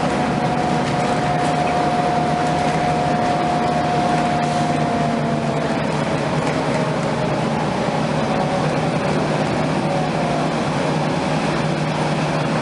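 Cabin noise inside a NABI 31LFW transit bus under way: the Cummins-Westport ISL-G natural-gas engine and loud HVAC blowers make a steady drone. A whine rides on top and slowly drops in pitch partway through.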